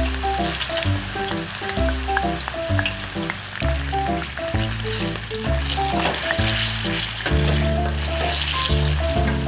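Whole sweet peppers deep-frying in hot oil in a fryer basket, the oil bubbling and sizzling steadily. A light melodic tune with a bass line plays over the frying.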